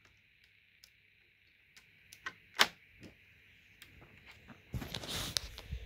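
Hands handling a Lego brick model: a few small plastic clicks, one sharp click about two and a half seconds in, then about a second of rustling near the end.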